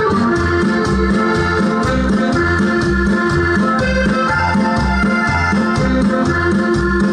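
Loud dance music led by an electronic keyboard, with sustained organ-like chords over a steady bass beat of about two beats a second.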